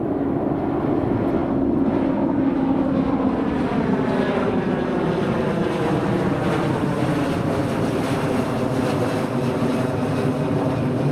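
Jet noise from a climbing Airbus A330-300's Rolls-Royce Trent 700 turbofans as it passes overhead. A loud, steady rush with engine tones sliding gradually down in pitch as the aircraft goes by and away.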